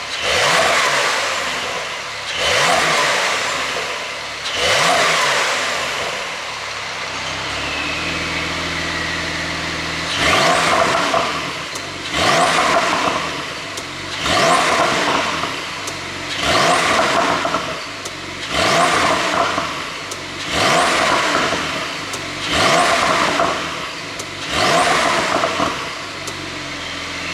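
ECU-tuned 2020 Porsche 911 Carrera (992) twin-turbo flat-six being revved repeatedly, a sharp blip that falls away about every two seconds. The blips pause for a few seconds of steady idle about a quarter of the way in.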